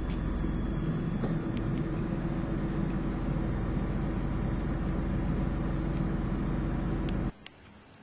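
Car engine running steadily, a low constant hum; it cuts off suddenly near the end.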